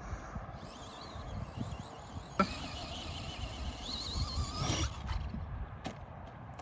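Radio-controlled car's electric motor whining high, its pitch rising and falling with the throttle, over a noisy background, with a sharp click about two and a half seconds in.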